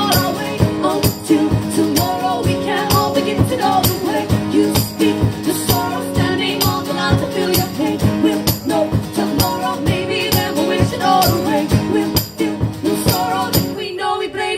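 Live band performance of a folk-pop song, playing with a steady driving beat. The music stops with a final chord about a second before the end.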